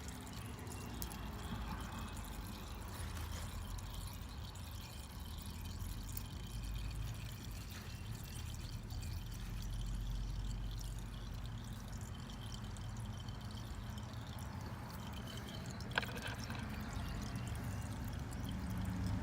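Engine oil draining from an iGen 4500 inverter generator's crankcase into a catch can during its first oil change, a steady pouring trickle. There is one sharp click near the end.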